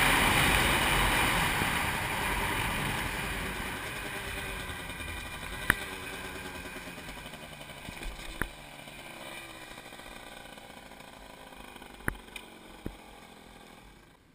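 Yamaha DT 50 moped's 50 cc two-stroke engine with a Technigas Enox expansion-chamber exhaust running at low speed, its sound growing steadily quieter. A few sharp knocks stand out along the way.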